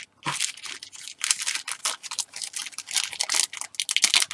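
Thin plastic bag crinkling and rustling in a quick, irregular run as hands handle the clear plastic sprue inside it.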